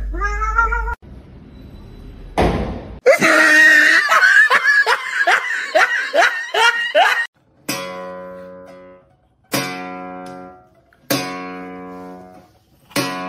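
Acoustic guitar strings sounding four times as a cat rubs its head against them, each chord ringing out and fading. Before that comes a loud quick run of short rising cries.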